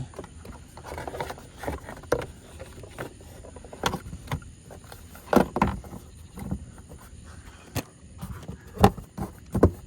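Plastic engine cover being handled and pressed back onto its mounts: a series of separate knocks and clunks, with a pair about halfway through and two more near the end.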